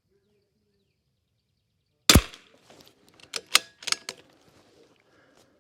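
A single .22 LR rifle shot about two seconds in, followed by several sharp clicks over the next two seconds.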